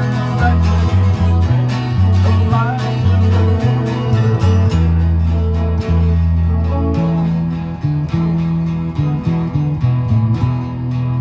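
Several guitars playing together in an informal jam: acoustic guitars strumming chords alongside an amplified electric guitar, over low notes that step along in a steady line.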